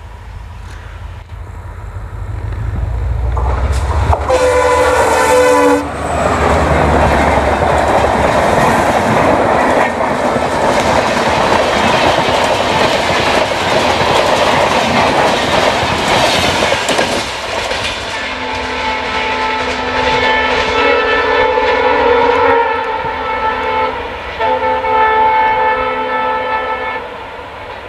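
EMD WDP-4 diesel locomotive passing at speed with its train: the engine rumble grows as it nears, and its horn sounds briefly about four seconds in. Then the coaches go by with a loud, steady roar of wheels on rail. As the train moves away, a horn sounds again in several long blasts.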